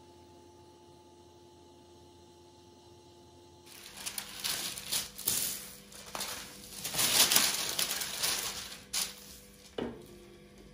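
A faint steady hum, then a few seconds in, irregular crinkling and rustling handling noises with a couple of sharp clicks near the end.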